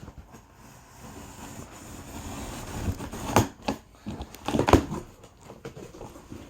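Packing tape being cut and torn off a cardboard box: a rasping tear that builds over a couple of seconds, then sharp cracks of tape and cardboard, the loudest about a second after the first.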